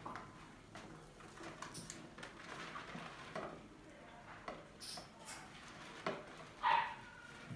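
Mice scrabbling and moving about in and on a clear plastic jar trap: irregular light clicks and knocks of claws and bodies against the hollow plastic, with one louder knock near the end.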